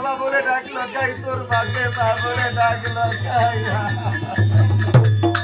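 Folk-theatre music accompaniment: a wavering melody over a low drone that comes in about a second in, with jingling percussion keeping a quick steady beat from about a second and a half in.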